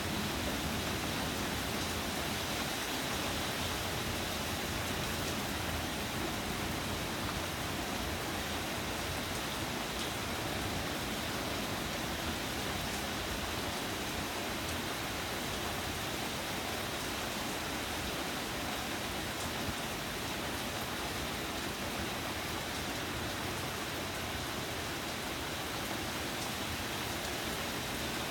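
Steady rain pouring down, an even hiss of drops on the ground and foliage.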